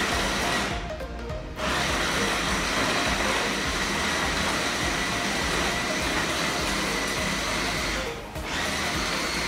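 Midimori electric meat chopper's motor running with a steady whine as its blades grind galangal in the stainless steel bowl. The motor cuts out briefly about a second in and again near the end.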